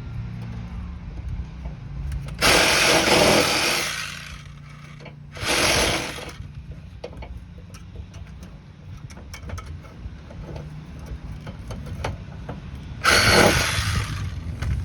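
A power tool runs in three bursts on a stripped, stuck sway bar link bolt: one about a second and a half long, a shorter one about a second later, and another near the end. Small clicks of hand work come between the bursts.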